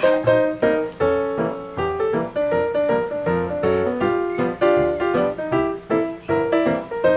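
Background music: a cheerful piano waltz, with notes following one another at an even pace.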